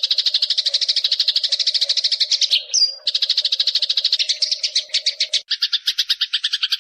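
Eurasian tree sparrow giving a long, rapid rattling chatter of fast repeated notes, broken briefly by a short higher chirp a little under three seconds in and shifting to a lower, harsher run of notes about five and a half seconds in.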